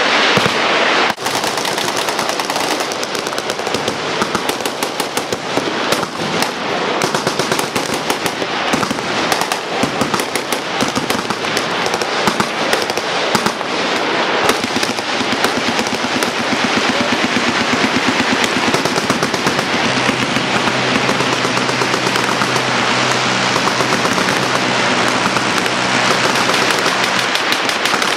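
Many machine guns firing at once in overlapping bursts: a dense, near-continuous rattle of automatic gunfire. A steady low hum joins about two-thirds of the way in.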